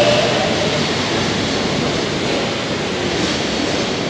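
Madrid Metro Serie 9400 electric train moving along the platform and away, a steady rolling rush of wheels on rail. A faint whine fades out right at the start.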